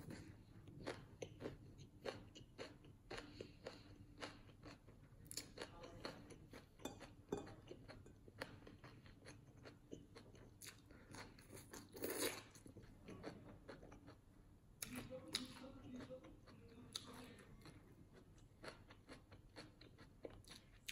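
A person chewing a crusty banh mi sandwich: irregular crunches and wet mouth clicks from bites of baguette with chicken, pickled vegetables and cilantro.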